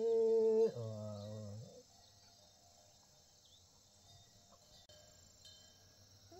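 Water buffalo lowing: one long call at the start that rises, holds, then drops lower and fades out after about two seconds. A shorter, higher call falls away near the end.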